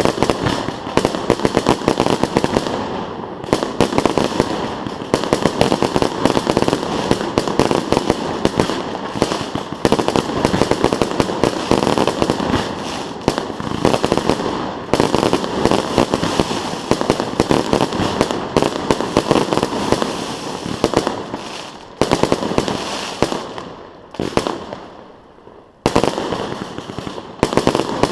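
Fireworks display: rapid volleys of bangs and crackling shells going off almost continuously, with a few brief lulls near the end before new salvos.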